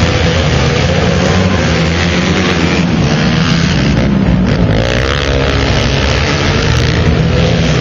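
Racing quad (ATV) engines running hard together, their pitch rising and falling as the riders work the throttle through the turn.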